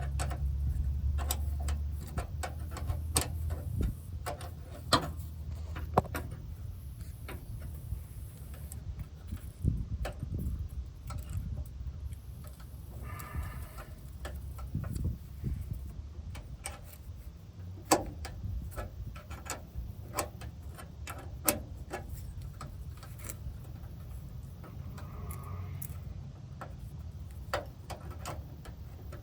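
Hand wrench working a brake line fitting under a truck: irregular sharp metallic clicks and clinks, spaced unevenly, over a steady low hum.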